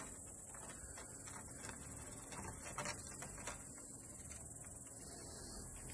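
Steady high-pitched insect chirring, with faint scattered taps and scratches of a cat's claws gripping a wooden plank as it climbs down.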